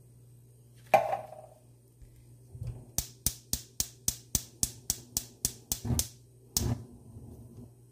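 A sharp metal clank with a brief ring, then a gas range's electric spark igniter clicking about four times a second for some three seconds until the burner lights, with one more click just after.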